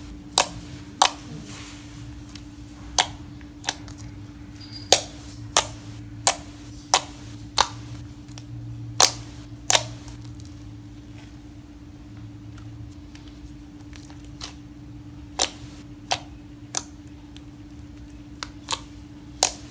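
Homemade white slime being poked and squeezed by hand, giving sharp popping clicks at irregular intervals as trapped air is pressed out, with a lull of a few seconds midway. A steady low hum runs underneath.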